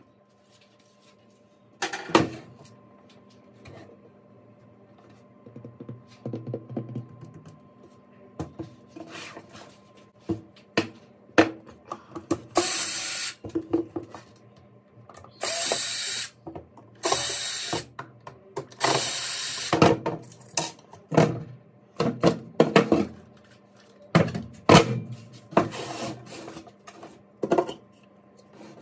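Cordless Porter-Cable 20V drill/driver running in four short spurts of about a second each, backing out screws from a soundbar's plastic housing. Frequent knocks and clatter of plastic parts being handled and set down come between the spurts.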